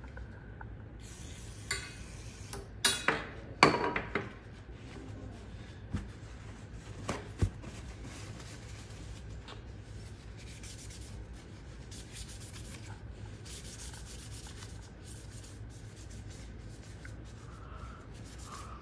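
A cleaning brush scrubbing carbon off a solvent-soaked part of a semi-auto shotgun: a faint, steady scratchy rubbing made of quick repeated strokes. A few sharp knocks come in the first four seconds.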